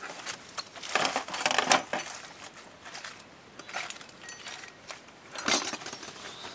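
Small metal objects clinking and clattering in irregular bursts, as hand tools or small parts are rummaged through; a cluster of clinks about a second in and a sharp rattle about five and a half seconds in.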